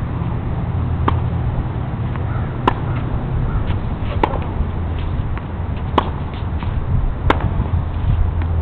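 Tennis ball struck back and forth with rackets in a rally: five sharp pops about one and a half seconds apart, with fainter ticks between them, over a steady low rumble.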